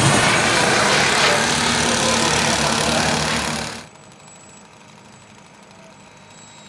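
Loud rushing noise of a radio-control model jet's turbine engine. It cuts off suddenly about four seconds in, leaving a much quieter background with a faint, steady high whine.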